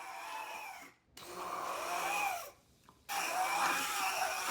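Handheld immersion blender running in a cup of water with strawberry tops, its motor whine wavering in pitch as the blades churn the pulp. It is switched off and on in pulses, cutting out briefly about a second in and again near three seconds.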